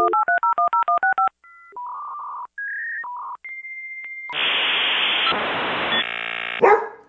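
Dial-up modem connecting: a quick string of about a dozen touch-tone dialing beeps, then a series of steady answer and handshake tones including one long high tone, then about two seconds of loud hissing static that cuts off near the end.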